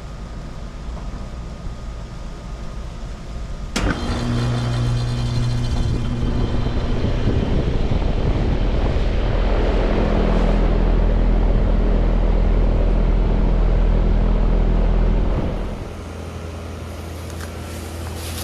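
2011 Trane XB13 heat pump starting up in heat mode. A sharp click comes about four seconds in, then a steady hum starts and a louder running noise builds up and holds. The level drops markedly about sixteen seconds in.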